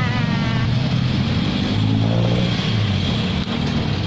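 Street traffic with a motor vehicle engine running close by: a steady low engine hum.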